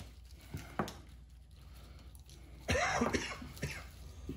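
A person coughing a little under three seconds in, after a few faint clicks.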